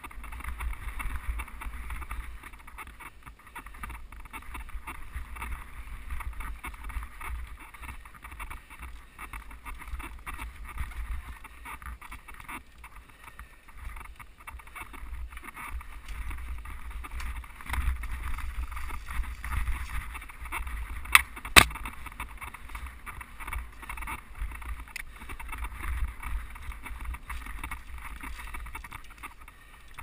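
Mountain bike rolling fast over a dirt singletrack: tyres on dirt and the bike's rattle, with wind buffeting the microphone. Two sharp knocks a split second apart come about two-thirds of the way through.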